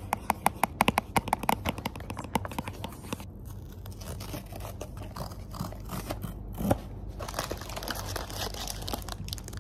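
A quick run of sharp clicks for about three seconds, then crinkling and rustling, like something being handled or unwrapped.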